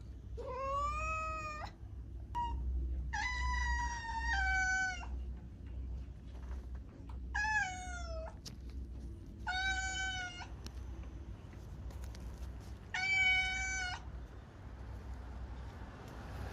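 A cat meowing repeatedly, about five drawn-out meows of around a second each with a few seconds between them, over a steady low hum.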